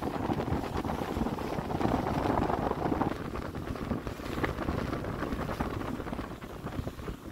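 Wind buffeting the microphone aboard a moving lake ferry, an irregular low rumble over the ferry's steady running noise.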